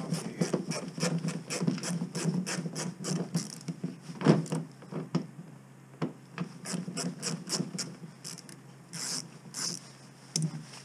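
Socket ratchet clicking as it unscrews a small bolt, in two runs of quick strokes, about four clicks a second, with one louder knock in between.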